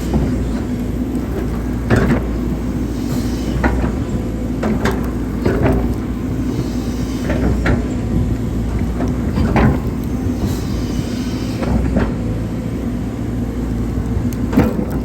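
Hydraulic excavator's diesel engine running steadily under load, with irregular sharp clanks and knocks from the bucket and arm as it digs.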